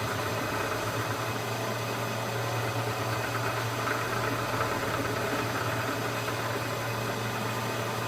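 Bridgeport milling machine running steadily with a low hum while the cutter takes a cut.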